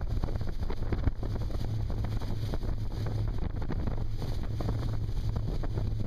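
Wind blowing hard on the microphone over the steady engine noise and rushing water of a speedboat running at speed.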